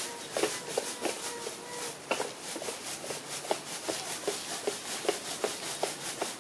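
Light, irregular taps and rustling, about two or three a second, as small monkeys move about and handle plant stalks on a woven plastic mat, over a fast, even pulsing hiss in the background.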